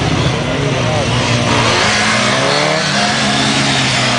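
Sport motorcycle engine revving, its pitch climbing and falling several times.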